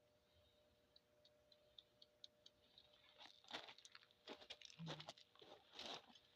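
Faint handling noises: a run of light ticks, then irregular crunching and scraping in the second half.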